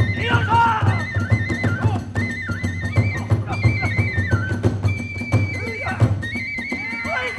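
Kagura accompaniment playing fast: a bamboo transverse flute plays a high, trilling melody in short steps over rapid, continuous drum strokes and clashing hand cymbals.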